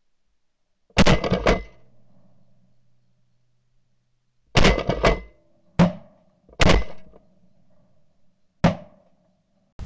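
Shotguns firing at ducks: a quick run of sharp shots about a second in, then four more shots spread over the next several seconds.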